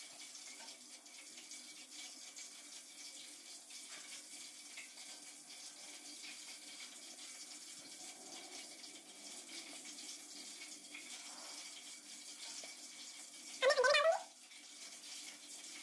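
Faint, steady room hum and hiss, with one brief high-pitched call about fourteen seconds in.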